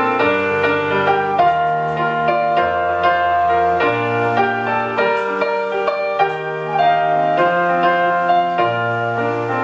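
Piano music, a melody over held bass notes that change about every second and a half.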